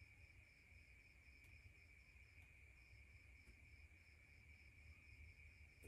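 Near silence: faint room tone with a faint, high, evenly pulsed chirping several times a second and a steady faint high tone.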